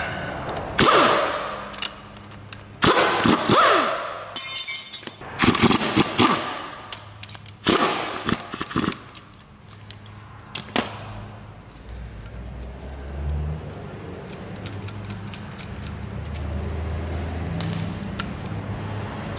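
Sharp metal clanks and clicks from a remanufactured rear brake caliper being handled and its mounting bracket unbolted, in about five loud bursts over the first nine seconds, one of them a fast rattle of clicks. After that, quieter handling sounds over a low steady hum.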